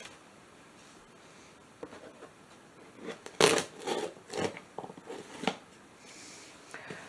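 Cardboard packaging being opened and handled: after a quiet start, a quick run of scraping, tearing strokes about three seconds in, the loudest first, then a few fainter rustles near the end.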